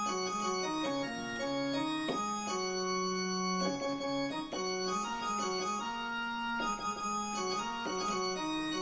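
Yamaha PSR-E473 portable keyboard playing a melody of held notes over a low accompaniment line, in an organ-like voice. It is a song stored in its registration memory, recalled from bank 1.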